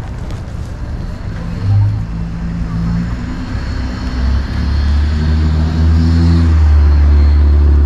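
Street traffic: a motor vehicle's engine running close by, the low rumble growing louder about halfway through as cars come along the street.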